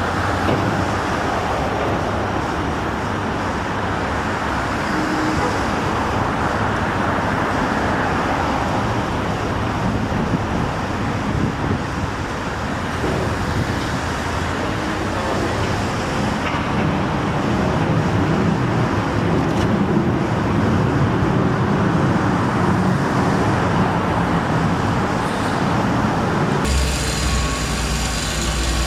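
Steady road traffic noise from passing cars. Near the end it changes abruptly to a steady low drone.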